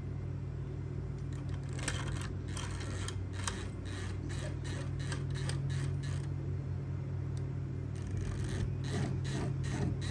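Small clicks and rustles of things being handled, in two clusters, over a steady low hum.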